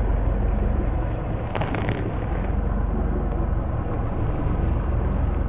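Inboard boat engine running steadily at trolling speed, a low even drone, with a brief faint rattle of clicks about a second and a half in.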